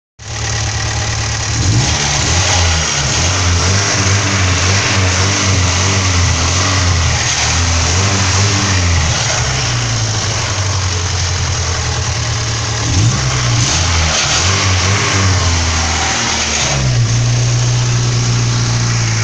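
Fiat fuel-injected (i.e.) eight-valve four-cylinder engine revved hard several times, its pitch rising and falling between spells of steadier running, with a loud, roaring exhaust note.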